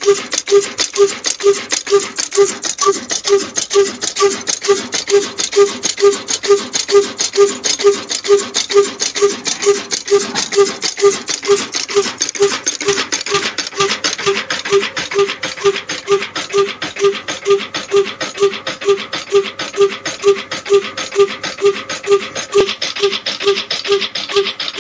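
Old Ruston diesel engine running steadily under load, its exhaust beating evenly at roughly three beats a second. A steady hiss comes from the grain grinding mill it drives.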